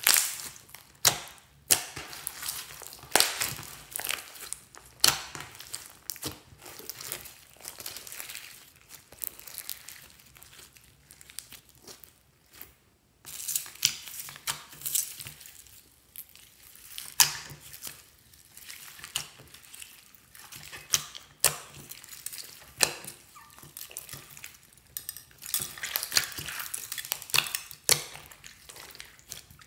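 Hands squishing and kneading sticky glitter slime, with irregular crackles, pops and squelches. A brief silence about 13 seconds in, then slime being worked with foam beads and sequins mixed in, giving more crackling and popping.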